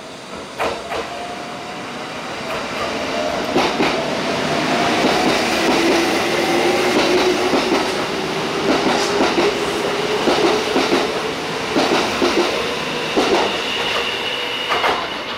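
Kintetsu electric train passing close by along the platform as it moves out. A motor whine rises slowly in pitch as it speeds up, and the wheels give paired clacks over rail joints every second or so.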